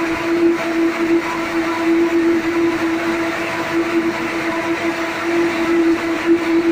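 Ring spinning frames running in a spinning mill: a loud, steady machine drone made of one constant hum with a whirring hiss over it.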